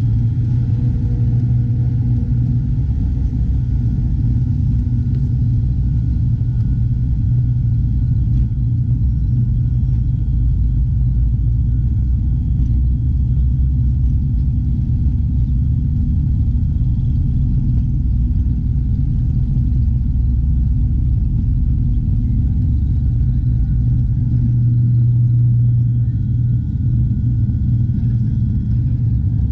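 Steady drone of a turboprop airliner's engines heard inside the cabin while the plane rolls along the runway: a deep rumble with a faint, steady high whine above it, swelling slightly near the end.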